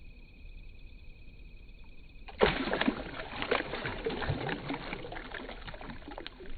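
Bass striking a shad held at the water's surface: a sudden loud splash about two and a half seconds in, then several seconds of churning, splashing water as the fish thrash at the bait.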